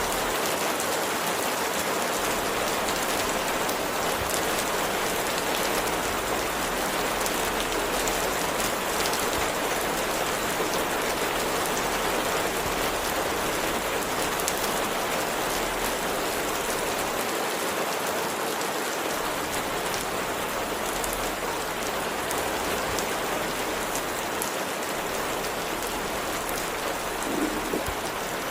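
Steady rain falling, an even hiss with scattered drop taps.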